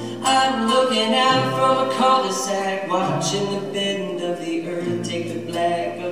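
Live acoustic band performing a song: voices singing over strummed acoustic guitar, ukulele and upright bass, the bass stepping to a new note every second or two.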